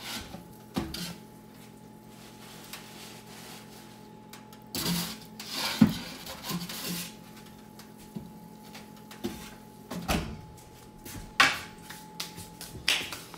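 Wooden pizza peel scraping and knocking on the baking stone inside an Ooni Volt electric pizza oven as the pizza is pulled out, turned and slid back, with the oven door knocking shut near the end. A steady low hum runs underneath.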